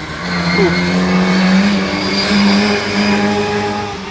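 Classic car engine pulling hard up the hill climb course and driving past, its note loudest through the middle and dropping away near the end.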